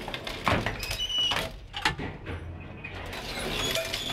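Manual elevator's metal gate and mechanism: a few sharp clanks with short squeaks in the first two seconds, then a steadier low running noise.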